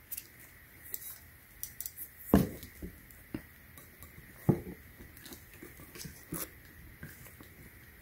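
Metal desk fan parts being handled during assembly: scattered light knocks and clicks as the aluminium arm and fan head are fitted onto the round metal base. The firmest knocks come about two and a half seconds in and again near the middle.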